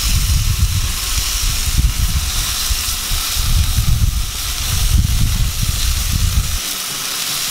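Redfish fillets sizzling on a hot gas grill: a steady hiss as Italian dressing marinade is poured over them. Under the hiss runs a low, uneven rumble that stops about a second before the end.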